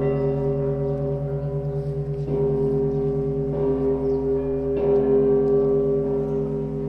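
Russian Orthodox church bells ringing, with heavy strokes about every second and a quarter. Each stroke rings on into a long, throbbing hum with many overtones.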